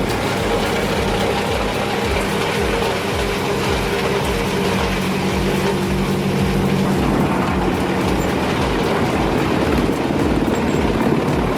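A heavy machine's engine running steadily under load, with a low rhythmic throb.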